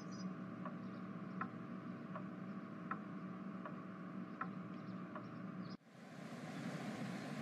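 A clock ticking slowly and evenly, about one tick every three-quarters of a second, over a low steady room hum. Near the end, a cut brings in a steady rushing noise that fades up.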